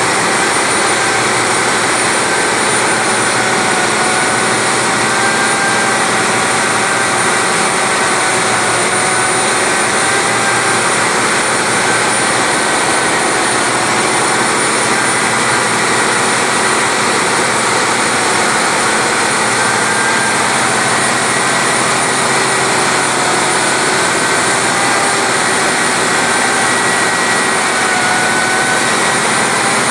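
Loud, steady machinery noise in a ship's engine room, with faint whining tones that waver slightly in pitch.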